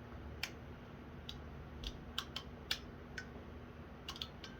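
About ten light, irregular clicks of small plastic and metal parts being handled while a CNC touch probe is put back together.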